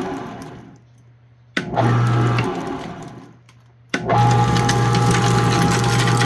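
Paper-shredder motor driving a dual-shaft plastic shredder. It starts and winds down twice, then starts again about four seconds in and runs steadily, with a hum and a whine over crackling from the shafts chewing plastic.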